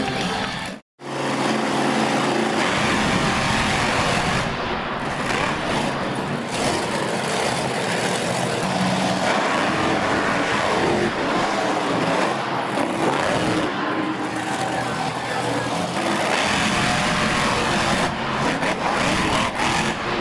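Several monster truck engines running on the arena floor, a dense continuous mechanical noise. The audio drops out for a split second about a second in, at an edit.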